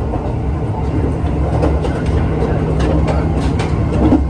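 Running noise of the Kanpachi Ichiroku diesel train heard inside a passenger car: a steady low rumble with irregular clicks and rattles from the wheels and car body.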